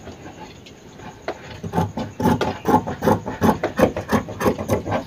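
Large tailoring scissors snipping through cotton blouse fabric, the blades sliding and clicking against the wooden surface beneath. A rapid run of short cuts starts about a second in, about three to four a second.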